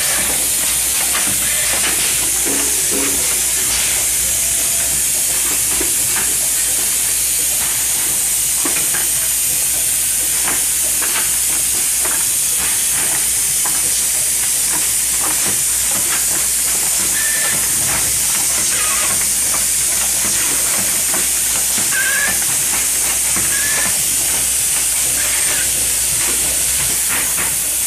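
Automatic bottle filling and pump-capping line running: a steady, loud high hiss with irregular clicks and clatter from the machinery and a low hum underneath.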